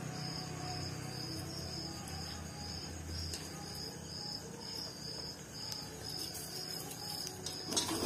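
A cricket chirping steadily, about two high chirps a second. Near the end there is a brief louder rustle and scrape of hands working fish pieces in a stainless steel bowl.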